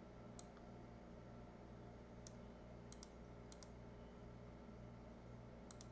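Near silence: a low steady hum with a handful of faint, sharp clicks scattered through, several of them in quick pairs.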